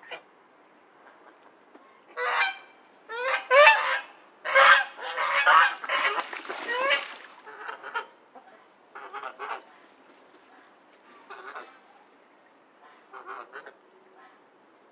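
Ducks quacking: a run of loud, nasal quacks that crowd together and overlap in the first half, then a few fainter, spaced-out quacks.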